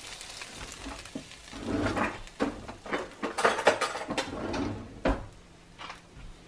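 Frozen french fries and their plastic bag being handled over a plastic air fryer basket: a run of irregular clicks, rattles and crinkles that thins out near the end.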